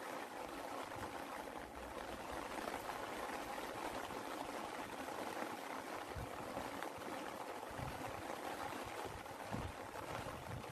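Rain falling steadily, an even hiss of drops with no let-up, and a couple of soft low thuds.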